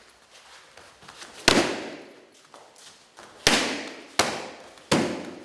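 Taekwondo kicks slapping into handheld kick paddles: four sharp smacks, one about a second and a half in, then three in quick succession in the second half, each ringing briefly in the room.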